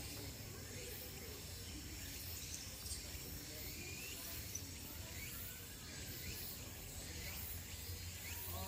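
Faint outdoor ambience: a steady low hum and background noise, with a few short, faint rising chirps scattered through.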